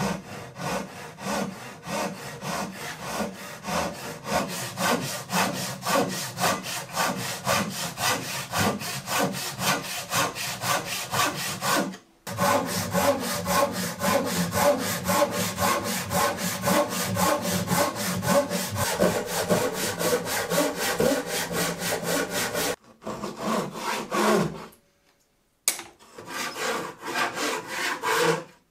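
Hand saw cutting a new tenon on the end of a wooden table apron, in quick, even strokes about three a second. The sawing stops briefly about twelve seconds in and again for short spells near the end.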